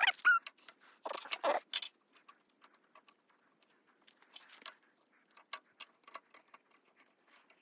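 Wrench clinking and ticking against the fittings of a backhoe's new hydraulic hose as it is put on and tightened. The light metal clicks are scattered, with a sharper clink about two seconds in and another about five and a half seconds in.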